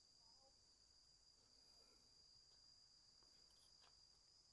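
Near silence, with a faint, steady, high-pitched insect drone held without a break.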